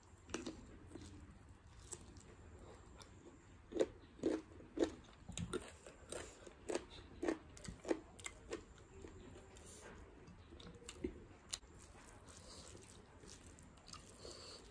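A person eating chicken, potato and dalle khursani chillies, chewing with a run of crisp crunches about two a second through the middle, then softer chewing.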